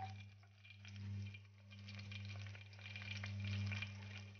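Cumin seeds sizzling faintly as they roast in hot oil in a steel kadhai, stirred with a wooden spatula, with a light crackle over a steady low hum.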